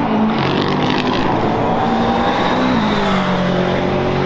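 McLaren 720S GT3 EVO race car's twin-turbo V8 passing by at speed. The engine note is loud and steady, then drops in pitch about two-thirds of the way through as the car goes past.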